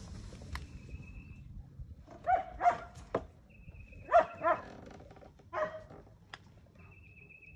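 A dog barking five times, mostly in quick pairs.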